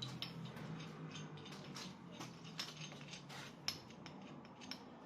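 Metal tools and parts clinking and knocking as they are handled, a string of light, sharp clinks, over a low steady hum that fades away about three seconds in.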